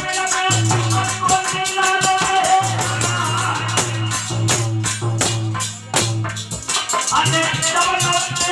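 Aalha folk music, mostly instrumental: a fast, even rhythm of jingling, rattling percussion over sustained melodic notes and long held low notes.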